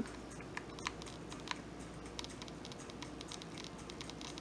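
Hot glue gun being worked against a crocheted yarn piece: scattered small clicks and soft crinkling from the gun and the handled yarn, a few sharper ticks in the first second and a half.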